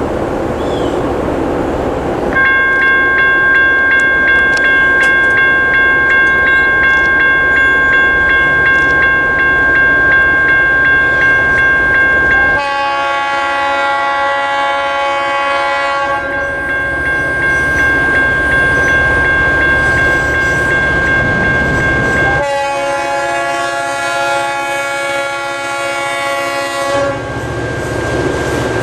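A General Signals Type 1 electronic crossing bell starts ringing about two seconds in and rings steadily on. Partway through, the horn of an approaching EMD GP38-2 locomotive sounds two long blasts, over the low rumble of the diesel engines.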